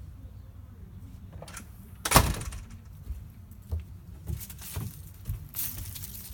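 A sharp bang or knock about two seconds in, followed by several lighter knocks and clatters.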